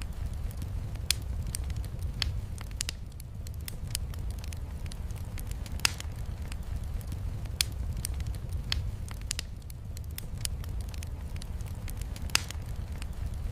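Wood fire crackling in a fireplace, with irregular sharp pops, the loudest about six seconds in and near the end, over a steady low rumble.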